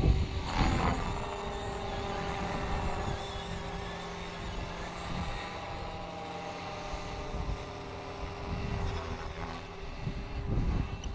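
Electric SAB Goblin 500 RC helicopter in flight: steady whine of its motor and spinning rotors, briefly falling in pitch about a second in, over a low rumble.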